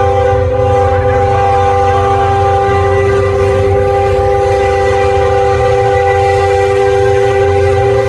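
Diesel freight locomotive horn held in one long, unbroken blast, several steady tones sounding together, over the low rumble of the train.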